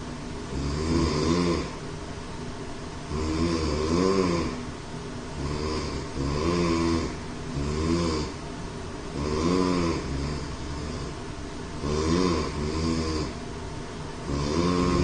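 A man snoring heavily, with a loud snore on roughly every breath, about one every two seconds. Each snore rises and falls in pitch.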